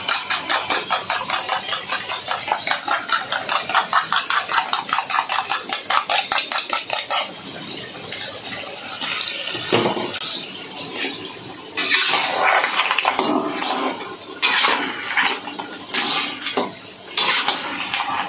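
A spoon beating egg in a small bowl, a rapid, even clinking at about five strokes a second for the first seven seconds. The sambal then bubbles in the steel wok, and from about twelve seconds a metal spatula knocks and scrapes against the wok as the crabs are stirred.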